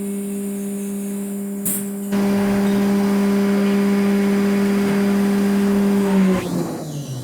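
Haas VF-2SS CNC mill high-speed milling aluminum with a 1-inch two-flute Walter cutter at 12,000 RPM: a loud, steady, high-pitched whine that gets louder about two seconds in. Near the end the pitch falls away as the spindle slows.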